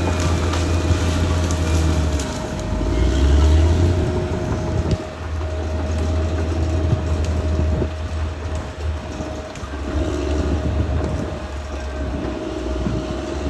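Caterpillar D6R XL bulldozer at work: its diesel engine runs under changing load, swelling about three seconds in and easing off near five, with a steady whine over the rumble.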